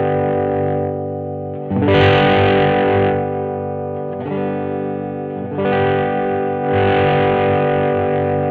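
1982 Vantage VE-550 electric guitar played with a distorted tone: sustained chords left ringing and strummed again about four times.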